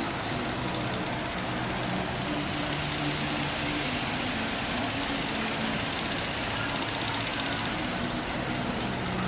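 Heavy rain falling steadily during a thunderstorm, an even hiss with a faint low steady hum underneath.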